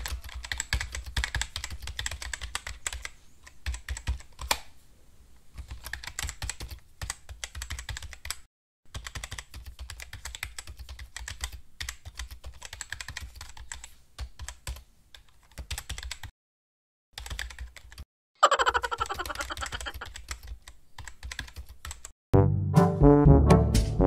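Rapid computer-keyboard typing clicks in runs broken by short pauses, a typing sound effect for on-screen text. About 18 seconds in comes a sweep falling in pitch, and near the end loud brass music starts.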